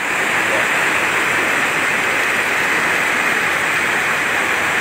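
Heavy rain and fast-flowing floodwater running over a road, a steady rushing noise.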